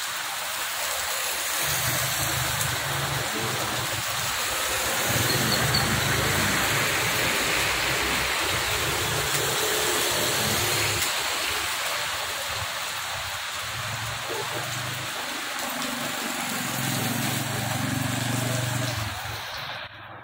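Heavy rain falling steadily, a dense even hiss, with low rumbles coming and going underneath.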